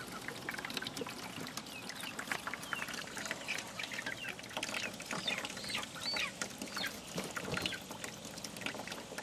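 Chickens clucking and calling, many short calls throughout, over a steady hiss of water running into the bucket from a toilet fill valve as it refills.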